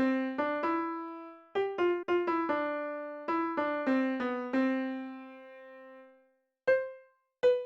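Background music: a solo piano playing a slow melody of single struck notes that ring and fade, pausing briefly near the end before a few more notes.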